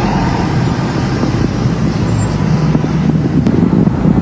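City street traffic noise: vehicle engines running and traffic passing, a steady low rumble.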